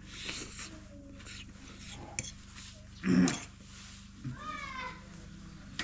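An animal calling: one short loud call about three seconds in, then a higher call that bends and wavers in pitch about a second later.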